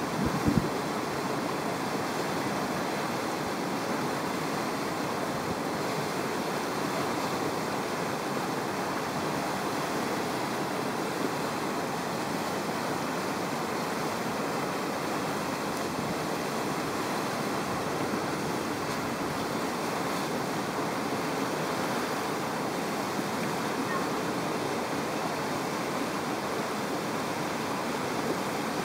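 Whitewater rapids rushing steadily, with a brief low thump just after the start.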